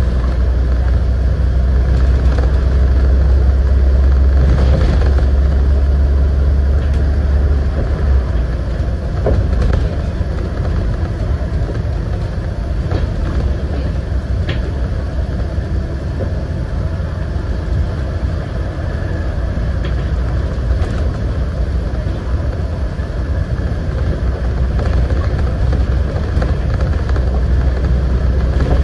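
Scania N94UD double-decker bus running on the road, its diesel engine making a steady low drone with tyre and road noise. The drone is strongest for the first eight seconds or so, eases through the middle and builds again near the end, with a few light knocks.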